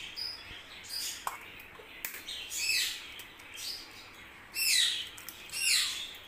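A bird chirping over and over, each chirp a quick whistle falling in pitch, repeated every half second to a second.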